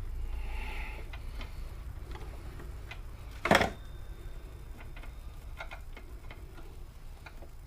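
Scattered light clicks and taps of tools and metal parts being handled, with one louder knock about halfway through, over a steady low hum.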